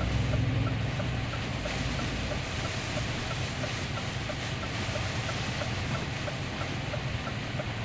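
Truck engine running, heard from the cab, under the hiss of heavy rain and tyre spray; the hiss grows brighter about two seconds in. A faint, even ticking sounds through it.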